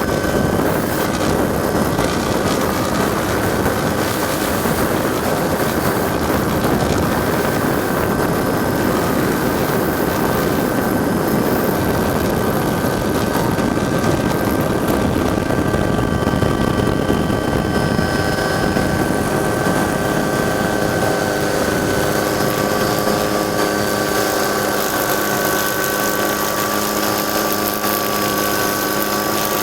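Helicopter turbine and rotor noise heard from on board: a steady, dense rumble with several steady whining tones over it.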